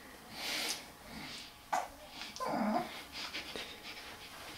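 A baby's breathy noises and short fussing sounds: a breath, a sudden brief catch, then a short sliding cry, with small clicks after.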